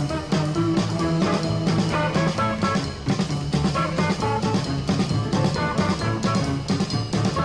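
Live electric blues band playing: electric guitars over drums with a steady beat.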